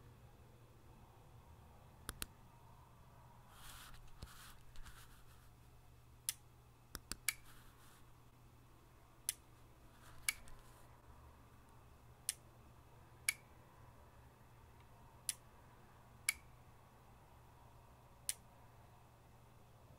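Arduino-driven relay clicking on and off in a regular pattern: clicks one second apart, repeating every three seconds. The relay is cycling because the potentiometer reads above 1015, at the linear actuator's end of travel.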